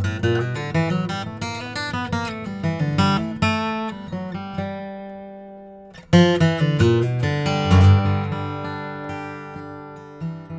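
Martin D-18 Modern Deluxe dreadnought acoustic guitar, with a torrefied spruce top and mahogany body, played with a flatpick. It plays a run of quick single notes and chords, lets a chord ring and fade, then comes back in with a hard attack about halfway through and more picked notes.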